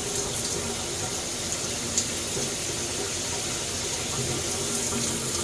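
Water spraying steadily from a rainfall shower head and a handheld shower head at once, the diverter set halfway to run both. A small sharp click about two seconds in.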